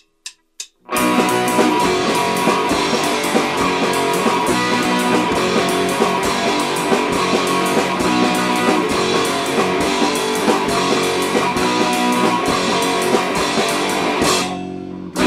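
An anarcho-punk band plays the instrumental intro of a song: loud strummed electric guitar over drums. It starts after a few short clicks in the first second and briefly drops away near the end, before the vocals come in.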